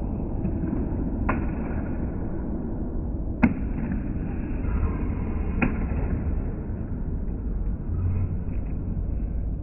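Low, muffled rumble of sports-hall noise, slowed down with the picture, broken by three sharp knocks about two seconds apart, the middle one the loudest.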